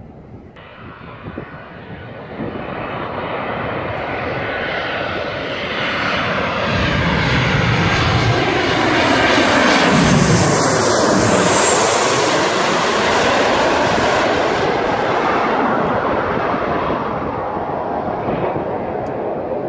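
Boeing 737-900's twin CFM56 turbofan engines on final approach, passing low overhead. The jet noise swells, peaks about halfway through as the airliner goes over with a sweeping whoosh falling in pitch, then eases off slowly as it heads on toward the runway.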